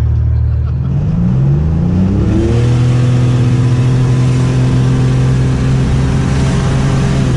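Buick Grand National's turbocharged 3.8-litre V6 heard from inside the cabin, its pitch rising over about a second and a half as the car accelerates, then holding steady at cruising speed. Road and wind noise fill out and grow louder once the engine settles.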